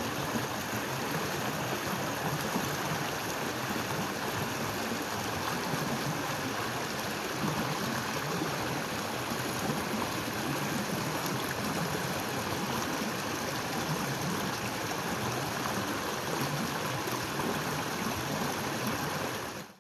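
Waterfall pouring steadily: an even, continuous rush of falling water that fades out at the very end.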